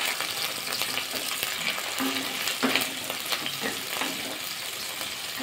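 Sliced onions and onion paste frying in hot oil in a non-stick kadai, sizzling steadily, while a wooden spatula stirs them with repeated scraping strokes against the pan.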